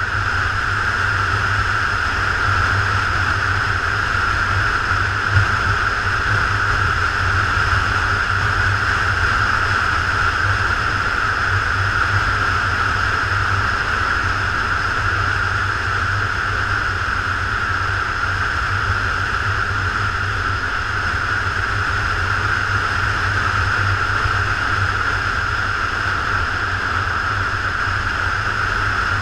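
Motorcycle riding at a steady road speed: a constant rush of wind noise over the camera with a low engine drone underneath, holding even throughout.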